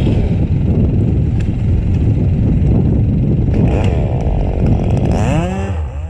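Chainsaw running at full throttle close by, cutting through a tree limb. About five seconds in the throttle is let off and the engine note drops and winds down.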